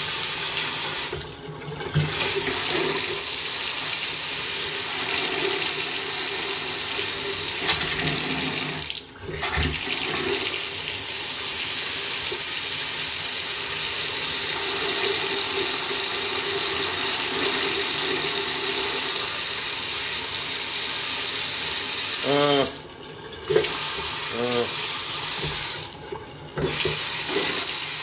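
Bathroom sink tap running full, a steady stream of water splashing into the basin. The sound drops out briefly about four times.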